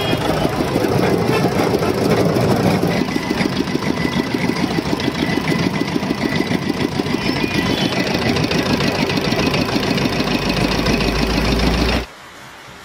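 Small stationary diesel engine running steadily with a fast, even knocking beat as it drives a sugarcane-crushing roller press. It cuts off abruptly near the end.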